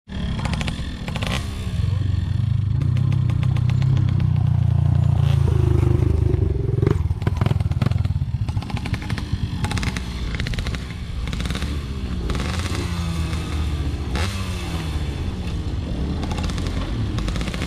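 Off-road trail motorcycle engine under heavy throttle, loudest in the first half, then revving up and down repeatedly as it works over rough ground. Short clattering knocks run through it.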